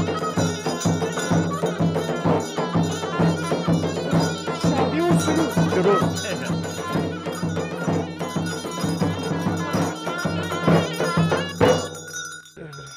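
Traditional folk music: a droning wind instrument over a quick, steady drum beat, breaking off abruptly near the end.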